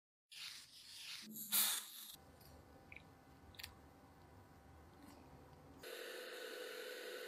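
Soft, sticky scraping and dropping sounds as cream cheese is scraped off a knife blade into a bowl, then liquid cream pouring into a glass bowl. Near the end a Bosch electric hand mixer switches on and runs at a steady hum, whipping the cream and cheese.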